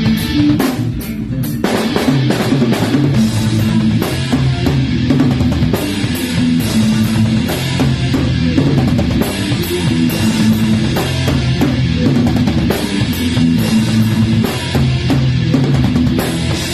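A rock band playing a heavy passage: a drum kit with dense kick-drum and cymbal hits under a guitar and bass riff.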